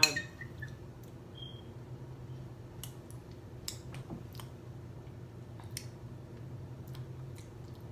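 A metal spoon clinks sharply once against a glass dish, then faint scattered clicks and mouth sounds as a spoonful of apple pie and ice cream is eaten, over a steady low hum.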